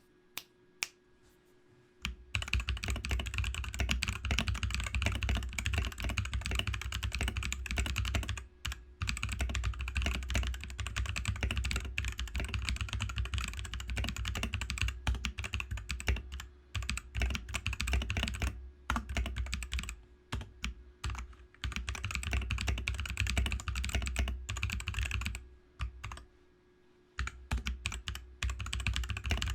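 Ozone Tactical mechanical keyboard being typed on: a few separate key clicks, then fast continuous typing from about two seconds in, each press with a strong low thud, broken by a few short pauses.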